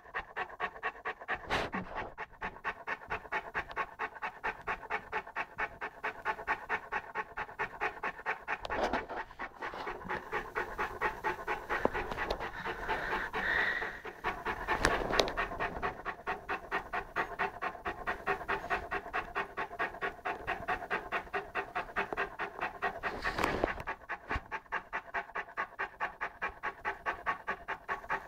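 Saint Bernard puppy panting hard and steadily, about four breaths a second, with a few short knocks scattered through.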